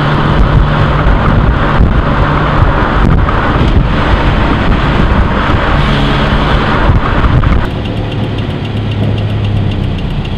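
Home-built car with an old Cessna airplane fuselage for a body, driving: engine, road and wind noise. About three-quarters of the way through this drops suddenly to a quieter, steady engine idle with a low hum.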